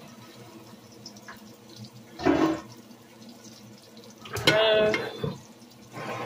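Water running from a kitchen tap into the sink, steady and fairly faint. Two short, louder sounds break in about two seconds in and again around four and a half seconds in; the second starts sharply and has a held, ringing pitch.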